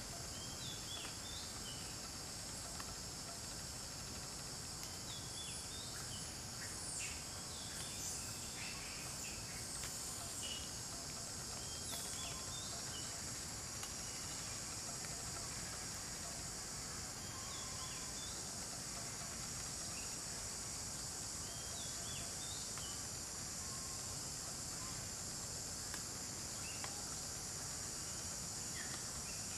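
A steady, high-pitched chorus of insects runs throughout. Over it, a bird gives a short chirp that repeats every four or five seconds.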